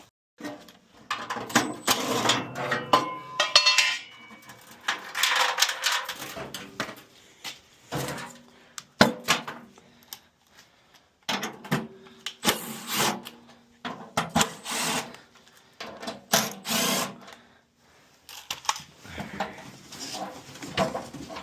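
Tools and metal parts clattering and knocking as they are handled, in irregular short bursts with pauses between.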